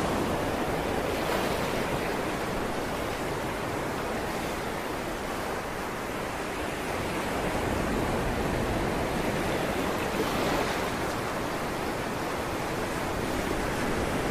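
Steady rushing noise of churning sea water and wind, rising and falling gently with no distinct events.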